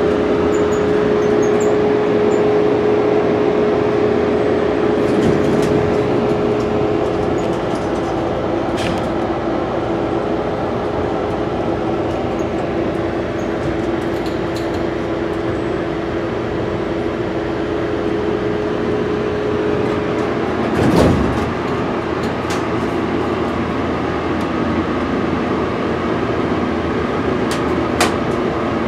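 Steady, loud whir inside a traction elevator cab, from its ventilation fan together with the car's running noise, carrying a constant hum that drops slightly in pitch about twenty seconds in. A thump follows a second later, and a short click comes near the end.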